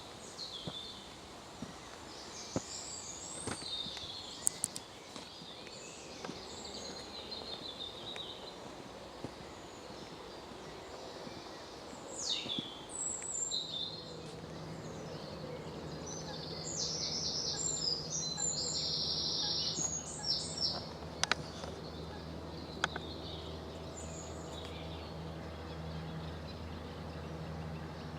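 Songbirds singing in short, repeated high phrases over a steady outdoor background. From about halfway in, a low steady hum joins in and stays.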